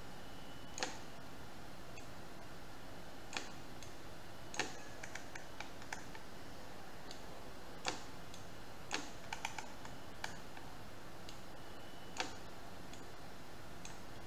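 Sparse, irregular clicks from a computer mouse and keyboard, about a dozen, some coming in quick little runs, over a steady faint hiss.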